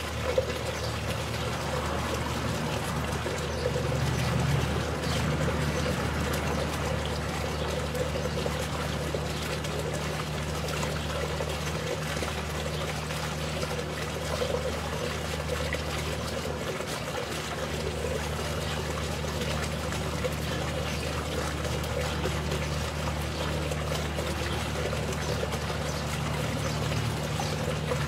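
Water trickling and splashing steadily, over a low steady hum.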